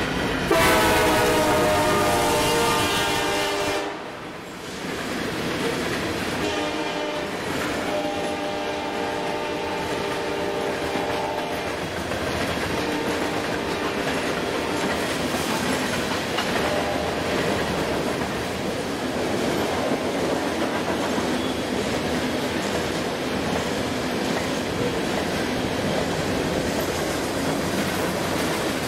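BNSF coal train passing at speed. The lead locomotive's air horn sounds one loud blast lasting about three and a half seconds, then more blasts between about 6 and 11 seconds in. Under and after the horn, coal hoppers roll by with steady rumble and wheel clatter.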